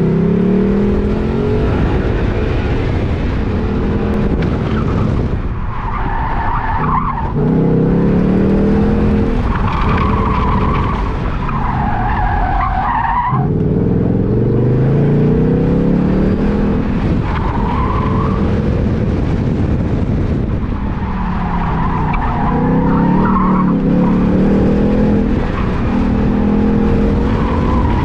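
Ford Mustang driven hard through an autocross course, heard from inside the cabin: the engine revs up under acceleration and falls back again and again, and the tires squeal through the corners several times.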